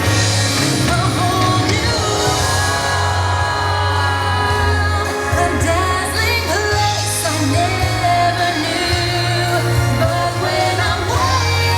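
The show's soundtrack music with singing, over a held low bass note.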